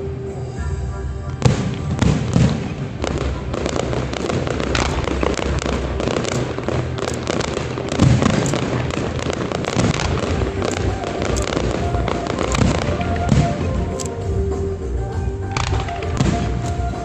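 Aerial fireworks shells bursting and crackling one after another in quick succession, the sharpest bangs about a second and a half in and again about eight seconds in.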